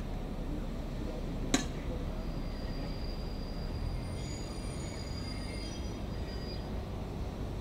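A distant train's wheels squealing: several high steady tones sounding together, starting about four seconds in and dying away near the end, over a low steady rumble. A single sharp click about a second and a half in.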